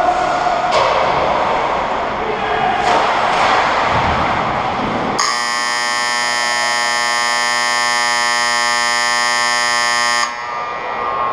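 Ice rink's game horn sounding one steady, buzzing blast of about five seconds, starting about halfway through and cutting off suddenly. Before it, rink noise with a couple of sharp knocks from sticks or the puck.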